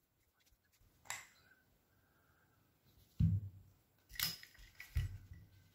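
Metal parts of a disassembled PCP air rifle being handled as the plenum tube comes off the action's threads: a light click about a second in, then three short dull knocks as the parts are set down on a foam mat.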